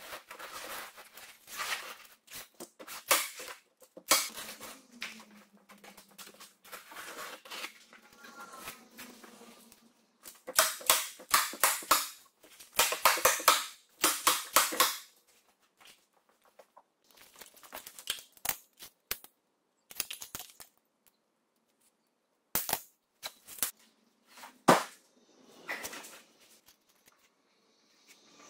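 Quick bursts of sharp clicks and snaps as aluminium foil insulation is pressed and fastened onto a half-round wooden lid with a small hand tool, with short quiet gaps between the bursts.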